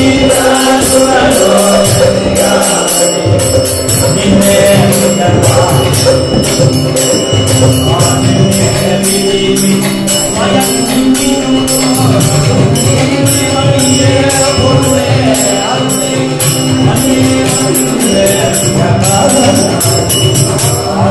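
Men singing a Carnatic-style devotional song with harmonium holding steady notes, two mridangams drumming, and small hand cymbals (jalra) struck in a steady beat about two to three times a second.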